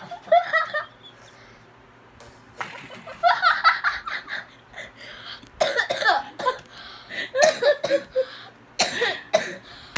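A sick boy coughing in several short bouts, voiced and breathy.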